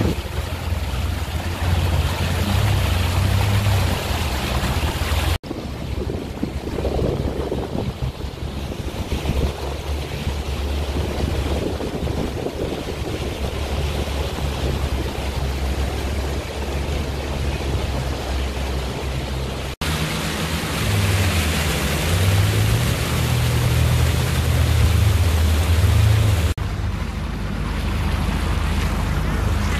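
A small aluminium boat's engine running steadily while under way, with water rushing along the hull and wind on the microphone. The engine's pitch wavers up and down for a few seconds past the twenty-second mark.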